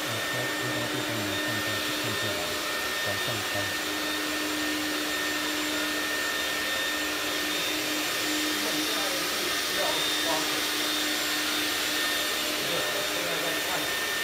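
ECOPRO compact walk-behind industrial floor scrubber running steadily, its motors giving a constant whine over a vacuum-like hiss as it scrubs a wet concrete floor.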